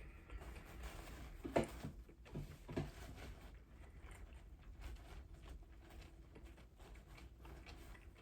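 Close-up eating sounds: chewing and small wet mouth clicks, with a few louder smacks about one and a half to three seconds in.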